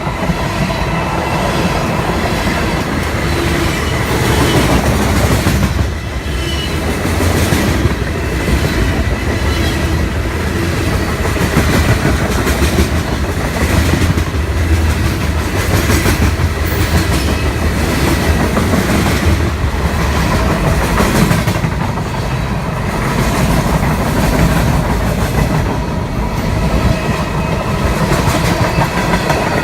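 A train passing close by, its wheels clacking over the rail joints with a continuous rolling rumble that stays loud for the whole stretch.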